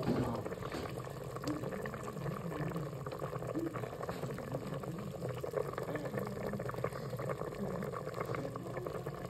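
A pot of mohodu (tripe stew) boiling, a steady bubbling with a dense patter of small pops.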